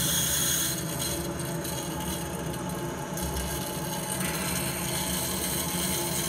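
Mains water hissing steadily through an open central-heating filling-loop valve as the drained, sealed system refills and builds up pressure.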